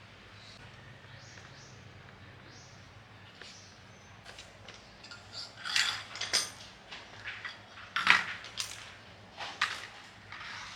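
Metal clinking and clanking: tools or small metal parts being handled and knocked together during a hands-on repair. There are a dozen or so short, sharp clinks, starting about four seconds in, with the loudest around six and eight seconds.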